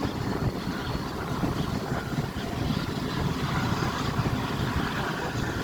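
Railway carriage running along the track, heard from inside the coach: a steady rumble of wheels on rails.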